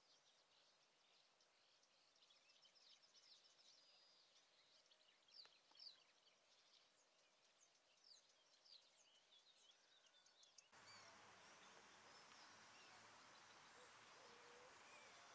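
Faint, distant birdsong: many short high chirps and trills from small songbirds over a very quiet outdoor background. About eleven seconds in the background changes suddenly to a steadier, fuller hiss with only a few scattered calls.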